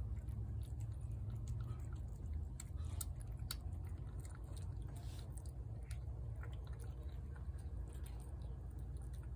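A cat chewing wet food from a plate: scattered small clicks of eating, over a low steady rumble.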